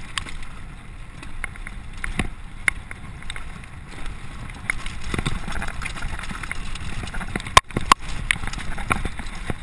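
Mountain bike descending a rocky forest trail at speed: wind rushing over the microphone, tyres on dirt and loose stones, and the bike rattling with scattered clicks and knocks as it hits rocks and roots. Two sharp knocks, the loudest sounds, come close together near the end.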